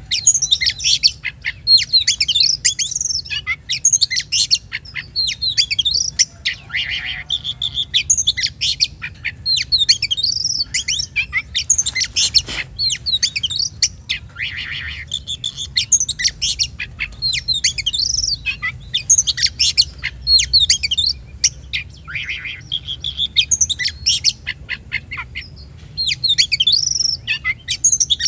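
Oriental magpie-robin (kacer) singing a fast, varied run of whistles, trills and harsher notes, with only brief pauses.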